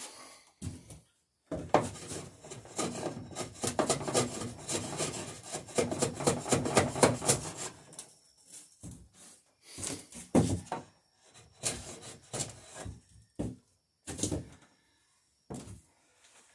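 Hand tool scraping and shaving a wooden plank while a gain is cut in its end: a run of rapid rasping strokes, then slower single strokes and knocks from about halfway.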